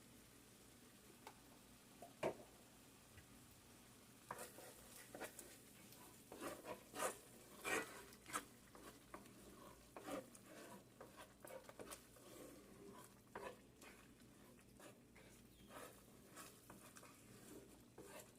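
Faint, irregular taps and scrapes of a utensil stirring seasoned tomato sauce in a pan, over near-silent room tone.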